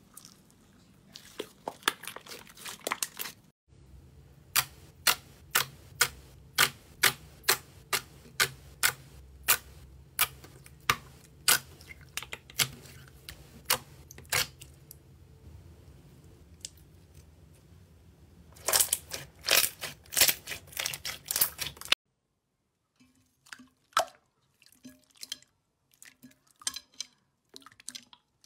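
Clear slime squeezed and pressed by hand, giving sharp sticky pops and clicks. The pops come in a regular run of a little more than one a second, then a dense flurry, then a few scattered quieter ones.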